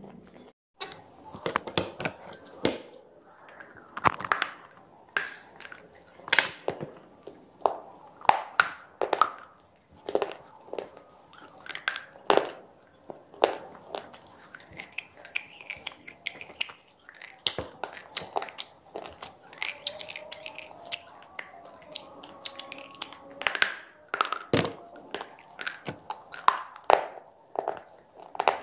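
Square pieces of slate being bitten and chewed: sharp crunches and cracks, one or two a second, with the loudest crack less than a second in.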